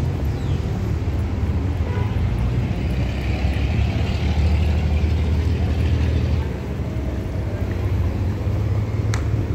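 Steady low engine rumble with general outdoor urban noise, loudest in the middle and easing off about two-thirds of the way through.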